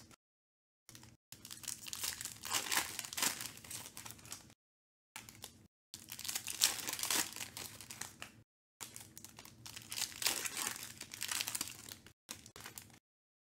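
Foil wrappers of Panini Select football card packs crinkling and tearing as they are peeled open by hand. The sound comes in several bursts, broken by short gaps of dead silence.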